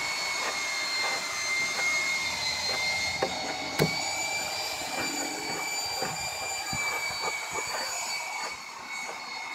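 A steady high-pitched machine whine, which spins up just before and then holds an even pitch throughout, with faint scattered scratchy clicks over it.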